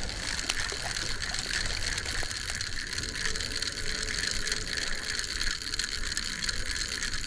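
Spinning fishing reel being cranked steadily to retrieve line, its gears whirring and clicking without a break.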